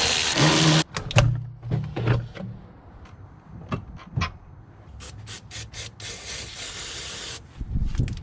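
Aerosol cleaner spraying in two bursts, a loud one at the start and a quieter one lasting over a second from about six seconds in, with scattered clicks and knocks of engine intake parts being handled between them.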